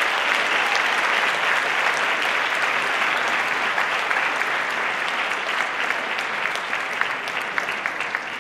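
Audience applauding. The dense clapping thins out in the last few seconds into separate individual claps.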